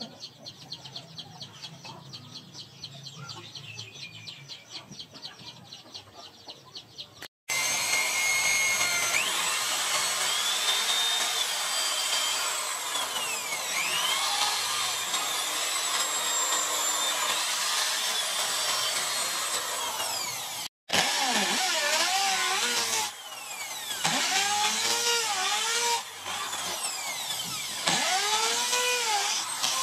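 Electric hand drill boring pin holes through a sword's wooden handle scales. Its whine rises and falls as the trigger is eased and squeezed, and the drill stops briefly twice. It is preceded by a quieter, quick, regular ticking for the first several seconds.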